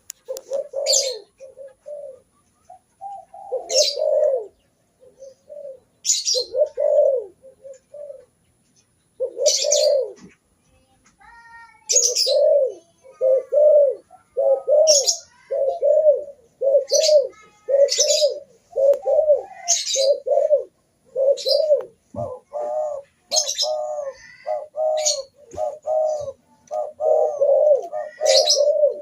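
Spotted doves (terkukur) cooing over and over in short low phrases. The coos come in spaced bursts at first and run almost without a break from about halfway on. Short, sharp high chirps cut in every couple of seconds.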